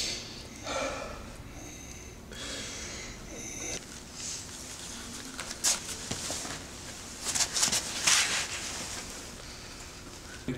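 A child's short, hissing, labored breaths and gasps, several in an uneven series: struggling for air during an asthma attack.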